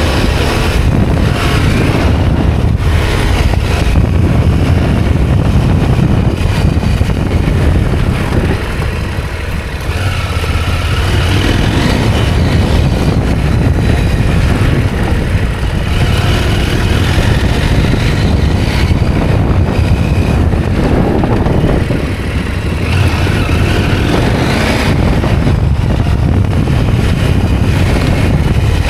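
A 2023 KTM 890 Adventure R's parallel-twin engine running under way, with the revs dropping back twice, about a third of the way in and again about three quarters through, then rising again as the throttle is reopened.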